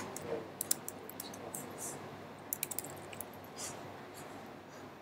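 Computer keyboard being typed on: short, uneven runs of key clicks with brief pauses between them.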